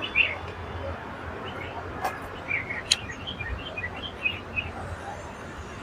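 Birds chirping: short high calls scattered through, over a faint steady low rumble, with two sharp clicks about a second apart near the middle.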